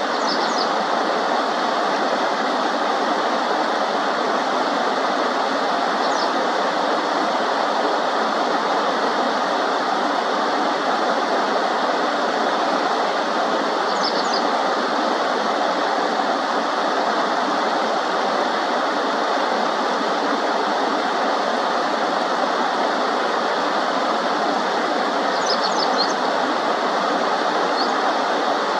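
Steady rush of shallow river water, with a few brief, faint high chirps from a Japanese wagtail scattered through it.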